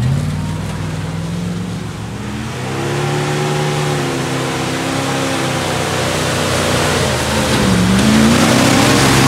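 Dodge Ram 2500's gasoline Magnum engine revving hard as the truck spins donuts in dirt, with its rear tyres spinning and flinging mud. The revs climb about a third of the way in, dip briefly near the end, then rise again to the loudest point.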